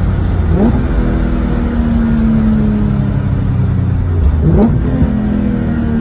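E46 M3's S54 straight-six running loud through a catless exhaust with Euro headers and a Status Gruppe V1 muffler. The engine pitch jumps up sharply twice, about half a second in and about four and a half seconds in, and each time sinks slowly afterwards.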